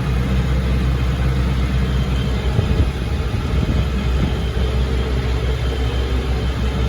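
Ford 7740 tractor's diesel engine running steadily as the tractor drives in fourth gear, a low drone, with a brief bump a little under three seconds in.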